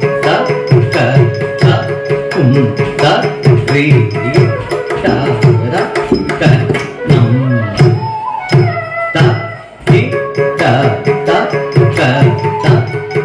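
Carnatic dance music in an instrumental passage: quick, dense hand-drum strokes over a steady drone, with a melodic instrument line moving above.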